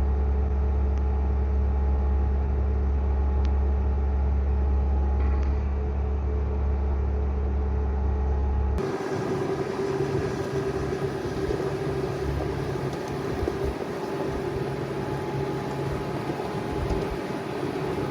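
Bobcat S650 skid steer's diesel engine running steadily under load as it carries a rack, with a strong low drone. About nine seconds in the sound changes abruptly to a thinner engine noise with a steady mid-pitched hum.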